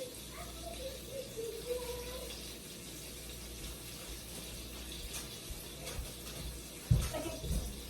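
Steady rush of running water, with a sharp knock about seven seconds in.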